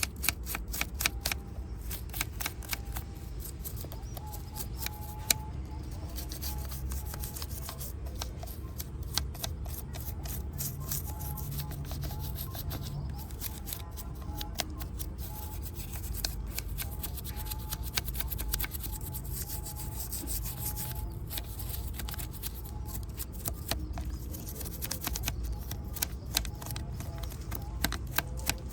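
Hand cleaning of a small die-cast model motorcycle: close-up rubbing and scrubbing, with many small irregular clicks and scrapes, over a steady low hum.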